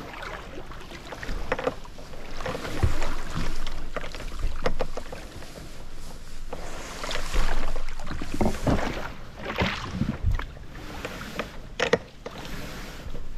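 Stand-up paddleboard being dragged up a grassy riverbank: tall grass swishing and scraping along the plastic hull in uneven pulls, with a few sharp knocks from the board and its gear.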